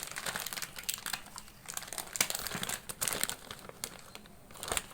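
Packaging crinkling as it is handled: irregular crackles and rustles, with a sharper crackle near the end.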